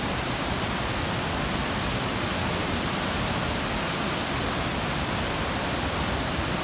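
Large river waterfall: a steady, even rush of falling water.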